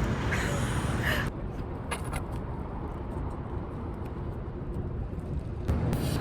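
Steady low rumble of vehicle noise, with a few faint clicks. The sound changes abruptly about a second in.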